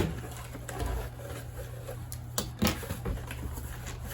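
A cardboard shipping box being opened and handled: a sharp knock at the start, then rustling of cardboard and a couple of dull thumps about two and a half seconds in.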